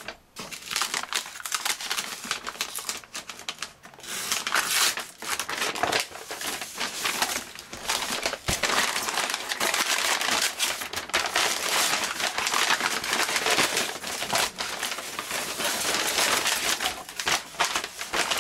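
Parcel packaging crinkling and crumpling as it is handled and unwrapped, a dense run of crackles and rustles.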